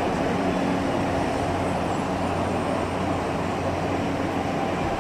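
Mexico City Metro train running: steady rumble of the moving car with a low, even hum.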